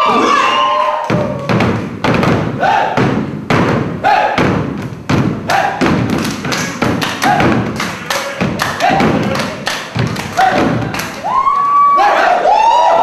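Loud rhythmic thumping, about two or three thumps a second, under gospel music with short gliding vocal phrases.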